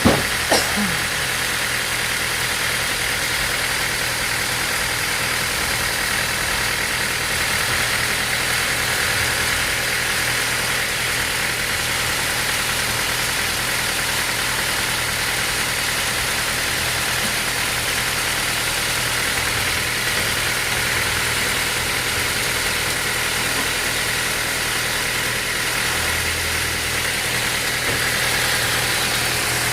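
Sawmill machinery running steadily with an even, engine-like hum, with two short knocks in the first second.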